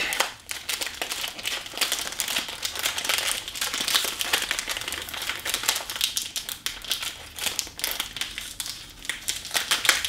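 Cellophane wrap crinkling and crackling as it is peeled off a new puzzle cube, a dense, irregular run of small crackles.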